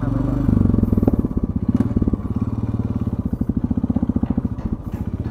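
Royal Enfield Classic 350's single-cylinder engine running as the bike rides slowly along, its exhaust beating in an even, rapid pulse that grows a little louder about half a second in.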